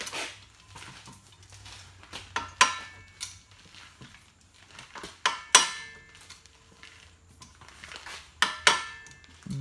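Steel parts of a JD Squared tube bender clanking as it is set up: about eight sharp metal knocks and clinks that ring briefly, scattered through, the loudest a little past halfway.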